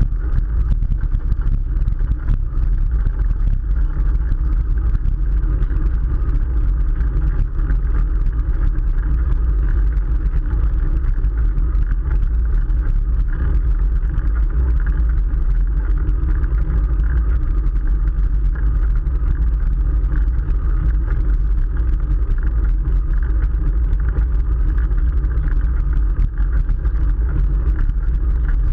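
Steady wind rush and rumble on the camera microphone of a moving bicycle, with road noise from the tyres; it holds even and unbroken throughout.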